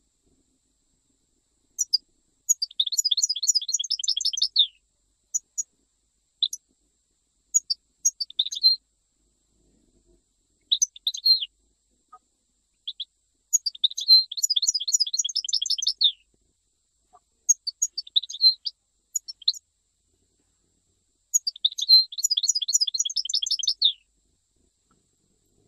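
European goldfinch singing a Jijel-style song in bursts of high, twittering notes. Three long, rapid trills of about two seconds each come about two seconds in, near the middle and near the end, with short note groups and brief pauses between them.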